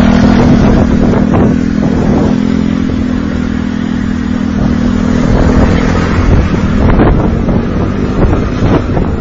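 Motorbike riding along a road, its engine running steadily under heavy wind buffeting on the microphone.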